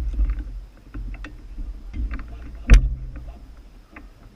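Heavy dull thumps with scattered clicks and rattles between them. The loudest thump comes about two and a half seconds in, and the sound grows quieter towards the end.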